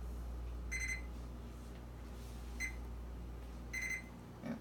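Over-the-range microwave oven keypad beeping as its buttons are pressed to set a timer: three short electronic beeps, the first and last a little longer.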